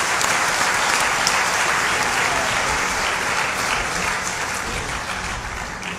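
Audience applauding, steady at first and fading away near the end.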